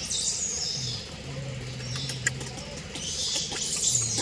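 High-pitched animal squeaks and chirps at the start and again near the end, with a few clicks, over a low steady hum that sets in about a second in, breaks off and returns near the end.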